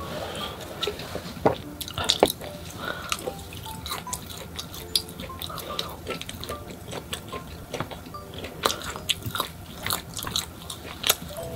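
Close-miked eating sounds: chewing with many short wet smacks and mouth clicks, with drinking from a can near the start, over soft background music.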